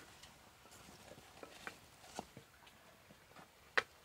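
Coconut-shell ladle stirring yam leaves in a clay pot over a wood fire: faint stirring sounds with scattered light clicks and crackles, and one sharper click near the end.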